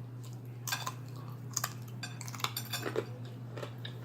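Metal cutlery clinking and scraping against a plate, a handful of sharp separate clicks with a brief rattle near the middle, over a steady low hum.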